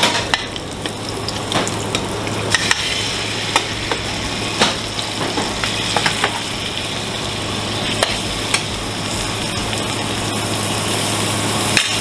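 Food frying and sizzling in a pan in a restaurant kitchen, with scattered clicks and scrapes of a metal spoon against the aluminium sauté pan, over a steady low hum.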